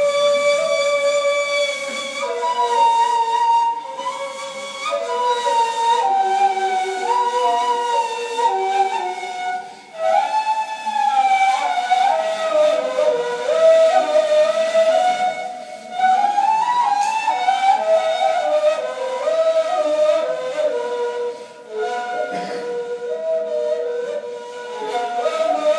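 Two neys, end-blown reed flutes, playing together in Ottoman classical style, two breathy melodic lines moving against each other and sliding between notes. The playing breaks off briefly three times.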